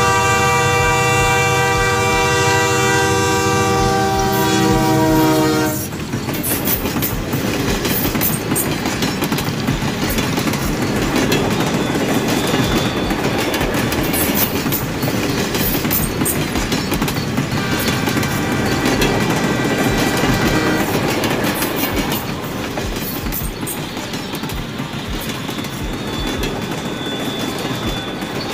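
Battery-operated toy train running on a plastic track: a steady horn tone sounds for about six seconds at the start and more faintly again about halfway through, and otherwise its motor and wheels rattle along the track.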